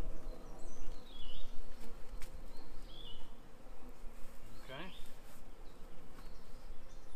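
Honeybees buzzing around an open hive, a steady hum.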